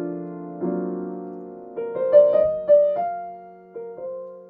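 Grand piano played softly: sustained chords and a few single melody notes, each struck and left to ring and fade, with a last note held and dying away near the end.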